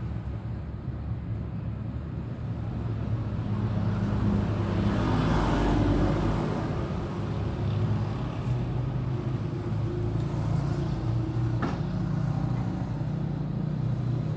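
A motor vehicle engine running steadily at low speed, with one sharp click late on.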